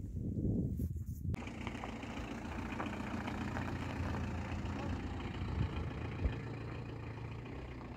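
Citroën Berlingo van running on the road: a steady engine drone with road noise. It starts abruptly about a second in.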